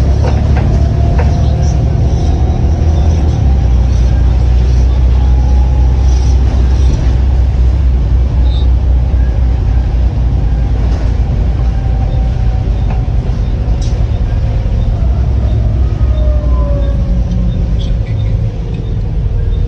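Volvo B7TL double-decker bus, with its six-cylinder diesel, running under way, a steady heavy rumble whose note slowly falls and rises as it pulls along, dipping slightly near the end.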